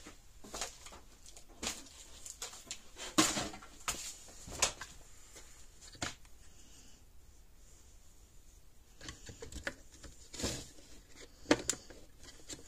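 Scattered clicks, taps and light knocks of small parts and components being handled and set down, with a quieter stretch in the middle.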